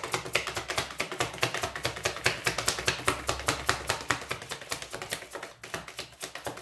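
A tarot deck being shuffled by hand: a rapid, unbroken run of card clicks, several a second.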